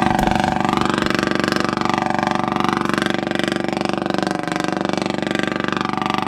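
A boat's generator running steadily and very loud, a constant engine hum with an even pitch.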